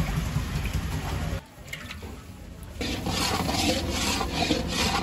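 Cooking oil pouring into a large iron kadai for about a second and a half. After a short lull, a metal spatula scrapes and stirs flour around the iron pan in repeated strokes.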